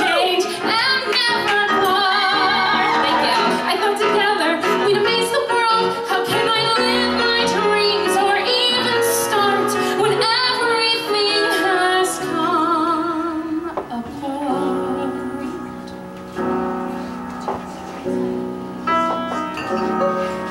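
A woman belting a musical-theatre ballad with wide vibrato over piano accompaniment; about twelve seconds in the singing grows softer.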